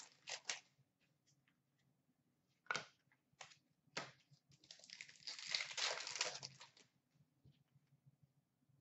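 A few light taps of cards being handled, then about two seconds of crinkling and tearing from the wrapper of a hockey card pack being ripped open, around the middle.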